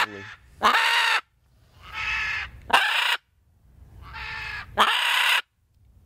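Macaws squawking back and forth: five harsh, raspy calls about a second apart, quieter ones alternating with louder ones, the contact calls of a flying bird and its flock mate.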